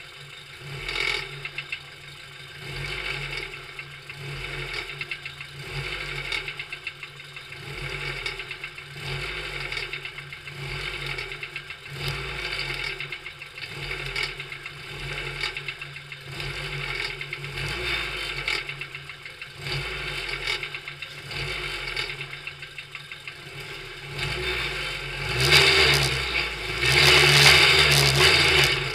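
Racing car engine heard from onboard, running while the car is stationary and being blipped in repeated surges every second or two. It is then revved much harder near the end as the car pulls away.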